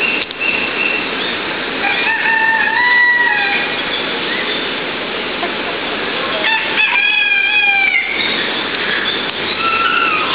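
Roosters crowing: two long crows, one about two seconds in and another about six and a half seconds in, with a shorter call near the end, over a steady hiss of background noise.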